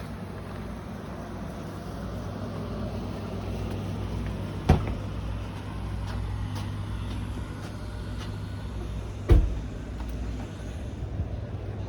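Steady low rumble with two sharp knocks about five seconds apart, the second one louder, as a wooden building's door is opened and gone through.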